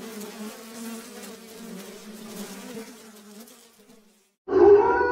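A swarm of flies buzzing as a low steady drone, fading away over about four seconds. Near the end a loud sustained pitched tone with overtones starts suddenly.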